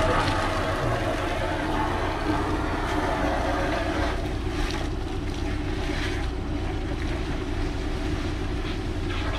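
The engine-driven pump of a septic-tank suction truck running steadily as a continuous low drone.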